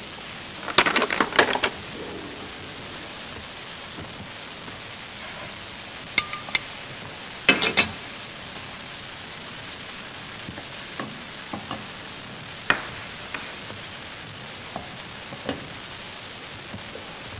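Oil and butter sizzling steadily in a stainless steel pot, with a few sharp clatters and knocks of a utensil against the pot. The loudest knocks come about a second in and near the middle.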